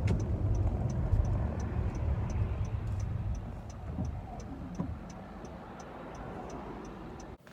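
Car turn signal clicking steadily, about three ticks a second, inside a Honda's cabin over engine and road rumble that dies down as the car slows and pulls up.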